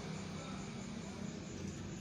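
Steady low background noise with a faint low hum and no distinct event.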